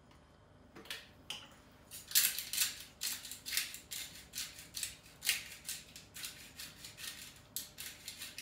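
Hand-twisted pepper mill grinding black peppercorns: a run of short grinding rasps, about three a second, starting about a second in.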